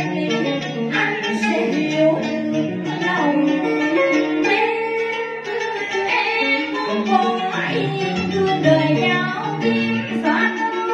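A woman singing a Vietnamese cải lương passage into a microphone, in long, wavering held notes, accompanied by plucked string instruments.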